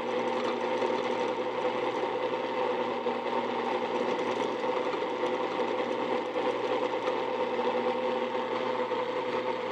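Drill press running at a steady speed with a small center drill in the chuck, spotting a center hole in a steel part; an even, unchanging mechanical hum.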